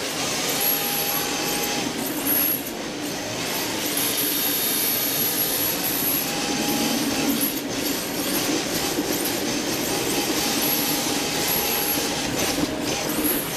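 Onboard sound of an electric rear-wheel-drive RC drift car sliding: a whine from the motor and gears over a steady hiss of hard drift tyres on a smooth floor. The whine tones come and go several times as the throttle changes.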